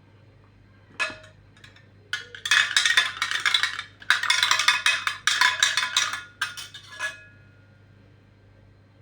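Rapid clinking of a metal utensil against a dish: one clink about a second in, then two fast runs of strokes lasting about one and a half and two seconds, with a faint ring after the strikes.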